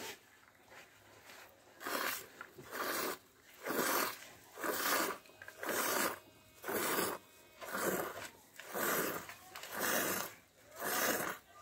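Hand milking a buffalo: milk squirting from the teat into a steel tumbler, a short spurt about once a second with each squeeze, starting about two seconds in.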